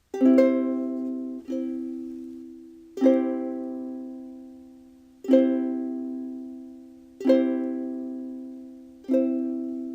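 Ukulele strumming a C chord six times, each strum ringing out and fading before the next, about every one and a half to two seconds.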